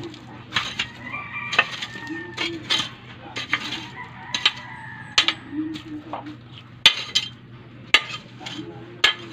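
Long-handled metal digging tool stabbing and scraping into gravelly soil around a tree stump, giving sharp, irregular strikes about once a second.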